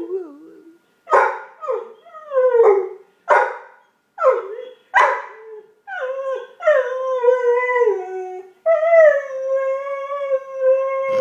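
A dog howling and whining: about six short yelping whines, each falling in pitch, then two long howls, the second held at a steady pitch for about two and a half seconds.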